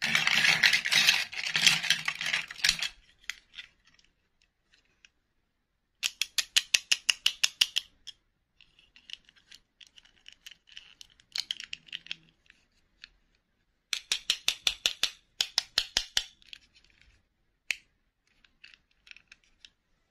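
Small plastic dolls and their clip-on dresses being rummaged and handled in a bowl: a burst of clattering and rustling at the start, then runs of quick clicking with light scraping between.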